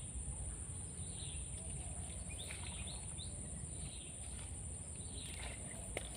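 Swamp-forest ambience: a steady high insect drone with scattered short bird chirps over a low rumble, and a single sharp click near the end.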